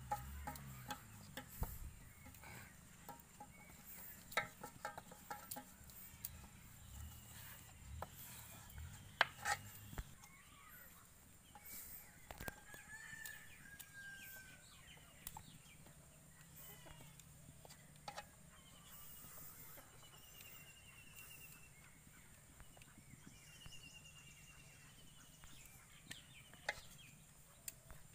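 Faint calls of a chicken clucking, heard as short pitched calls and trills from about the middle on. Earlier there are scattered light knocks and clicks of a wooden rolling pin working dough on a wooden board.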